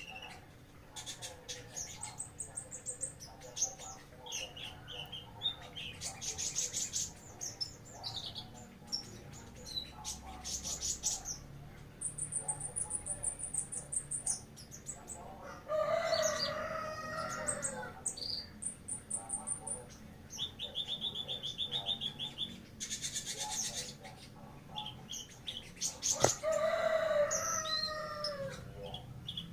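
Songbirds chirping and singing in fast high trills and note runs, with a rooster crowing twice, about halfway through and near the end.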